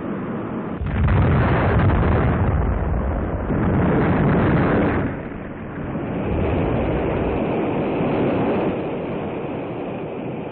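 Dubbed-in newsreel sound effect of the Atlas-Centaur rocket exploding. A sudden rumbling blast comes about a second in, with a second surge around four seconds, then a long rolling rumble that swells once more and slowly dies away, with a dull, narrow sound like old film audio.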